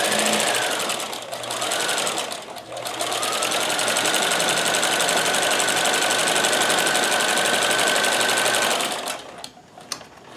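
Kenmore 158.1914 sewing machine with a walking foot stitching: two short bursts of the motor in the first couple of seconds, then a steady run at speed for about six seconds before it stops, followed by a few light clicks.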